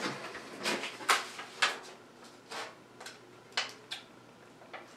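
A paper leaflet rustling and crinkling in several short, separate bursts as it is handled and held against a katana blade to test the edge's sharpness.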